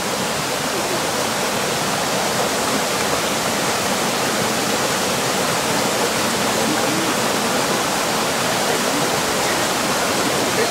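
A creek rushing over rocks, a steady, even hiss of moving water with no break.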